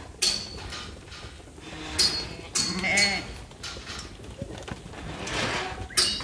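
Metal sorting-gate panels clanking and rattling several times as sheep are pushed through, with one short sheep bleat about three seconds in.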